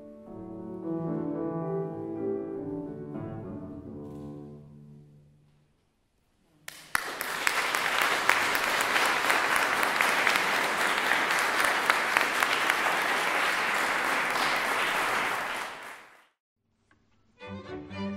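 Closing chords of a song's accompaniment on a Kawai grand piano, held and dying away. After a moment of silence an audience applauds for about nine seconds, then stops; new music begins near the end.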